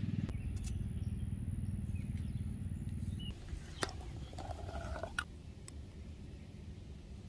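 A low, pulsing drone for the first three seconds or so, dropping away to a quieter rumble. Then a jar's screw lid being twisted open: a click, a short squeak, and a second click.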